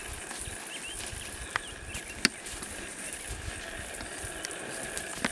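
Steady outdoor background hum with a few faint chirps, broken by three sharp clicks or taps, the loudest a little past two seconds in.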